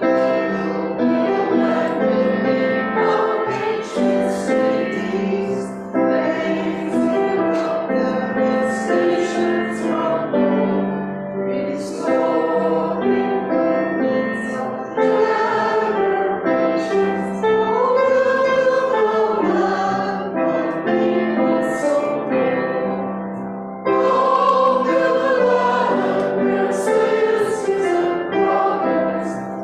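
Choir and congregation singing a hymn together, with piano accompaniment. About 24 seconds in there is a brief lull before the next phrase comes in louder.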